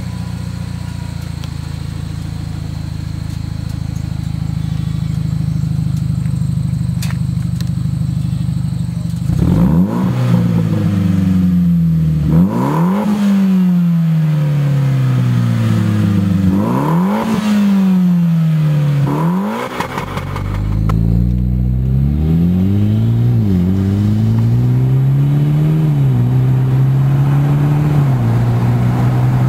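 Mitsubishi Lancer Evolution X's turbocharged 2.0-litre four-cylinder heard through a Buschur Racing 3-inch stainless catback exhaust with quiet muffler. It runs steadily at first; after about ten seconds it is revved sharply about four times, each rev falling slowly back. A few smaller blips follow before it settles to a steady note near the end.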